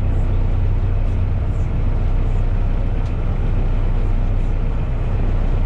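A canal trip boat's engine running steadily under way, a low, even drone heard from inside the passenger cabin.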